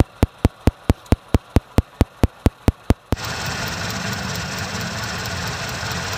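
A spark plug firing in open air while grounded against the engine, snapping sharply and evenly about four to five times a second. It shows the plug and its lead are working. About three seconds in this gives way to the steady sound of the Suzuki Forsa engine running, with the snaps faint beneath it.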